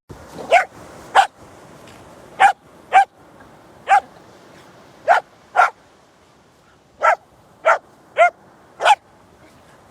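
A dog barking: about eleven short, sharp barks, several coming in pairs, at an uneven pace.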